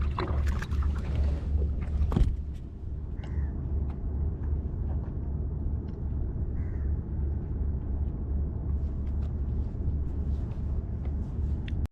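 Low, steady rumble of wind buffeting the microphone out on the open water, with one sharp knock about two seconds in. The audio cuts off abruptly at the end.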